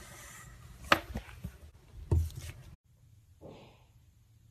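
Hand slapping and pressing a lump of slime on a tabletop: wet squishing with two sharp slaps, the louder one about two seconds in, then the sound cuts off abruptly.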